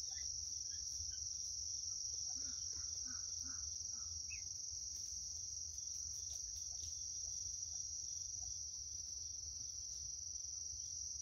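A steady, high-pitched drone of insects trilling without a break, with a low rumble underneath.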